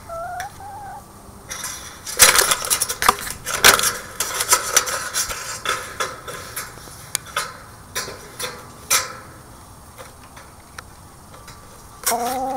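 Black chicken pecking at the camera close up: a run of sharp taps and clicks, densest a couple of seconds in and thinning out, with a short cluck at the start and a rising call near the end.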